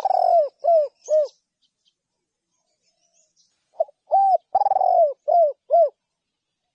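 Spotted dove cooing: a phrase ends in the first second and a half with one long note and two short coos. After a pause of about two seconds a full phrase of five coos follows, its middle note longer and rougher than the rest.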